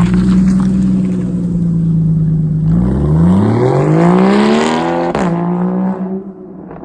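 Straight-piped 2.7-litre flat-six exhaust of a 2013 Porsche Boxster 981, held at steady revs, then rising for about two seconds. The revs drop abruptly about five seconds in with a sharp crack, and the sound eases off near the end.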